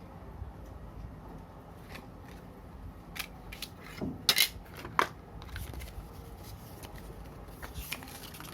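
Scattered clicks and rustles of a phone box and its contents being handled, with a few sharp clicks about four to five seconds in.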